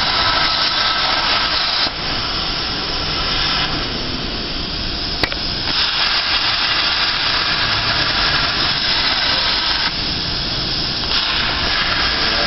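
CNC plasma cutter torch cutting steel plate: a loud, steady hiss from the arc and gas jet, its tone shifting every couple of seconds as the cut goes on. There is one sharp click about five seconds in.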